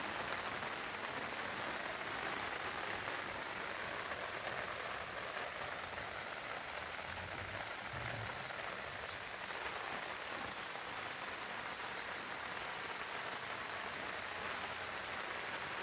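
Light rain falling steadily, an even patter of drops. A few faint high chirps come through about two-thirds of the way in.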